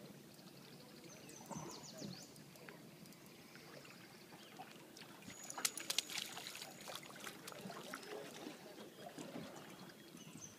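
A hooked white bass thrashing and splashing at the water's surface beside the boat as it is reeled in, loudest for about a second just past halfway, among scattered clicks and taps.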